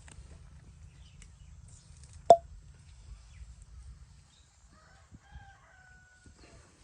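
A single sharp snap about two seconds in, the loudest sound. Later a rooster crows faintly, one call about a second and a half long, over a low background rumble.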